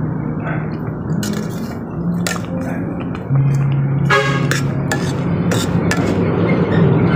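Metal tongs clinking against the side of a stainless-steel cooking pot as boiling noodles are stirred, several sharp clinks, one ringing briefly. Background music plays underneath.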